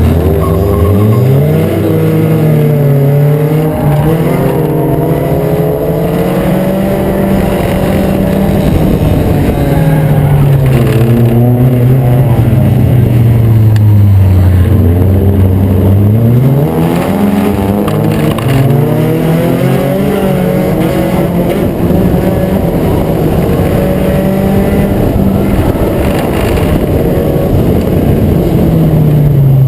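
Acura Integra race car's four-cylinder engine running at racing speed. The revs climb, hold, sink gradually for several seconds about a third of the way in, then climb sharply again, rising and falling with the laps.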